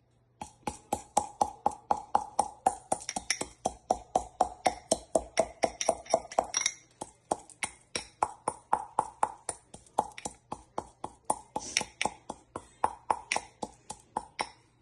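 Whole spices (cardamom pods, cloves, black peppercorns) being pounded in a mortar with a pestle: rapid, even strikes about four a second, each with a brief ringing tone.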